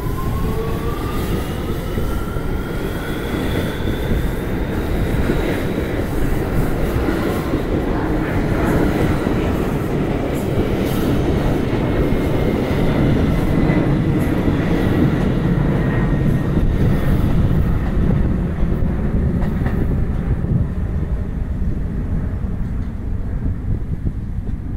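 R211A subway train pulling out of the station: the traction motor whine rises in pitch as it accelerates, over a steady rumble of wheels on rail. Partway through, a series of clicks comes from the wheels crossing rail joints. The higher sounds fade in the last few seconds as the train moves off.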